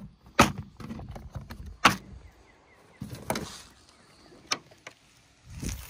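A few sharp knocks and clicks, roughly a second and a half apart, the loudest near the start: handling noise.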